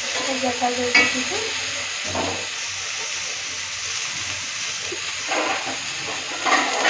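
Chopped green beans and potato sizzling in hot oil in a steel kadai, a steady frying hiss. A metal spatula clanks sharply against the pan about a second in, and more scraping strokes of stirring come near the end.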